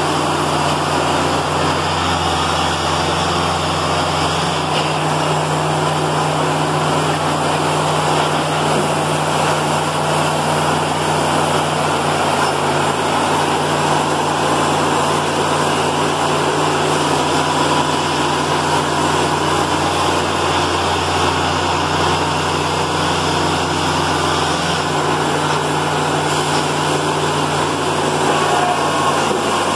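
Baker 3665D bandsaw mill running steadily under load: its 65 hp diesel engine drives the band blade as the saw head cuts along a log.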